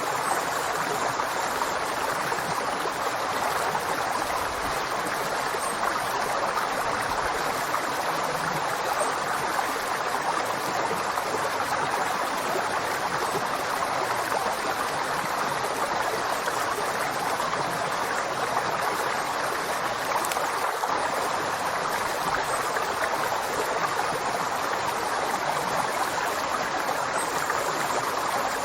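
River water flowing steadily, a continuous even rushing with no changes.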